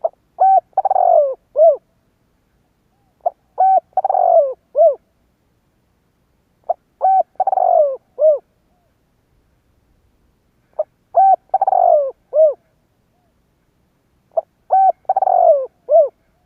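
Spotted dove cooing five times in a steady rhythm. Each phrase is a short note, then a longer falling coo, then a short closing note, repeated about every three and a half seconds. This is the territorial call that Vietnamese bird-keepers play as a decoy to rouse wild spotted doves.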